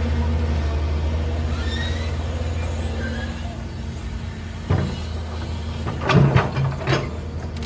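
Engine of heavy machinery running steadily with a low hum, with a sudden clunk about two-thirds through and a brief burst of hissing and clanking near the end.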